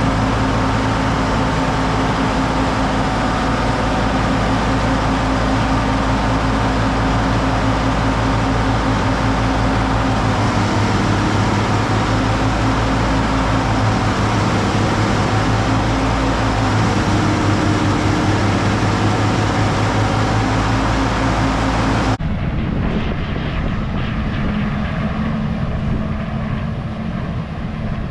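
Farm tractor engine and driven machinery running steadily and loudly; about twenty seconds in the sound changes abruptly to a duller engine sound.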